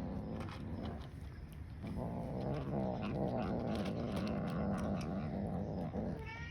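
A cat growling low and continuously while eating: a warning growl at another cat. It eases briefly about a second in, swells again, and a short rising cry starts at the very end.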